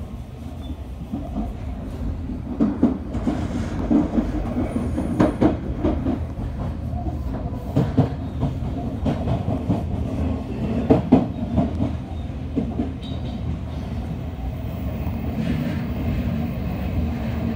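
Inside an Odakyu commuter train car running along the line: a steady rumble with the wheels clacking sharply over rail joints and points, the clacks coming thickest in the middle of the stretch.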